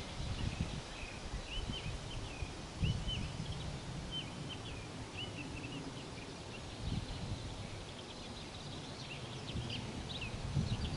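Small birds chirping in short, repeated high calls, with a low gusting rumble of wind on the microphone.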